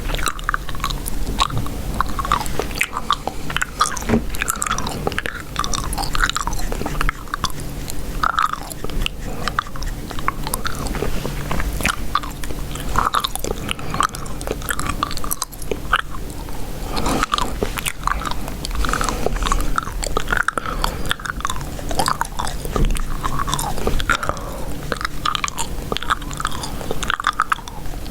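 Chewing gum close to the microphone: wet mouth smacks and clicks in quick, irregular succession.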